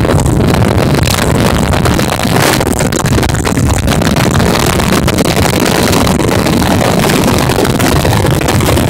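Evinrude 115 two-stroke outboard running steadily at cruising speed as the boat planes, with water rushing past the hull and wind buffeting the microphone.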